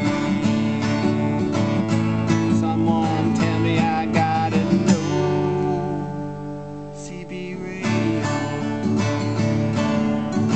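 Acoustic guitar strummed in a steady rhythm. About halfway through, a chord is left to ring for a few seconds, then the strumming starts again.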